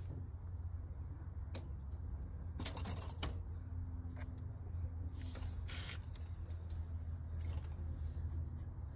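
Rabbit grooming another rabbit's head, its licking and nibbling at the fur heard as short runs of soft rapid clicks, three times, over a steady low hum.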